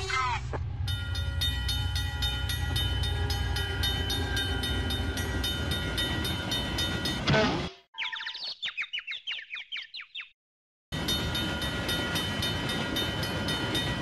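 Cartoon train sound effects: a train running with a steady low rumble and regular rail clatter. A short whistle-like glide and a quick string of falling cartoon chirps break in; the running sound stops for a moment and then starts again near the end.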